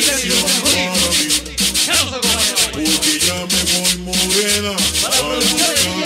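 Dance music played from the DJ booth: a steady, repeating bass beat under a pitched melody, with busy, quick high percussion strokes throughout.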